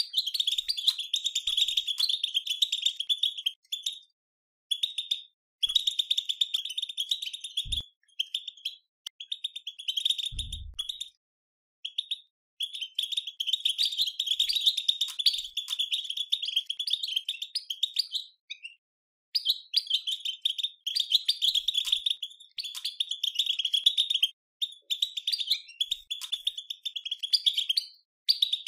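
European goldfinch twittering: rapid, dense chattering calls in bursts of a few seconds broken by short pauses. This is the 'batbata' chatter played to stir caged goldfinches into song. Two faint low thumps come in partway through.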